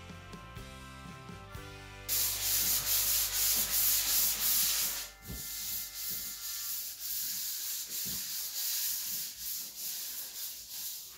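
Drywall being sanded by hand with a sanding sponge. Rapid, rasping back-and-forth strokes start suddenly about two seconds in, are loudest for the next three seconds, then carry on more lightly.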